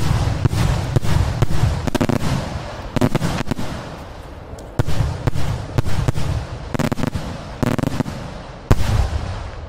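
A series of fireworks bombs (salute shells) going off: a heavy bang at the start, then a rapid run of sharp cracks and bangs in clusters, with another heavy bang near the end.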